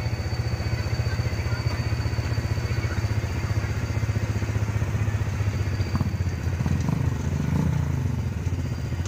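An engine idling close by, running steadily with a rapid even pulse.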